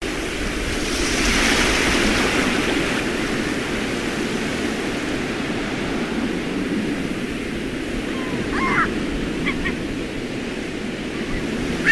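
Ocean coast ambience: wind and surf make a steady rushing noise, swelling about a second in. A few short high calls come near the end.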